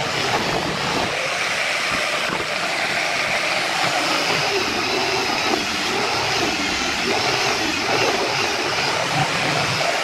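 Electric angle grinder fitted with a sanding disc, running steadily while sanding a curved wooden strip.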